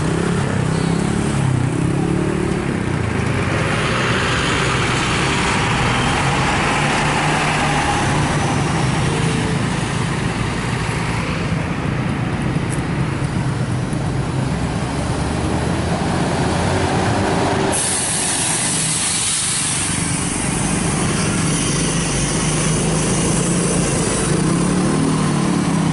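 Large diesel tour bus engine running steadily as a bus moves on the road, with a loud hiss that starts suddenly about two-thirds of the way through and lasts several seconds.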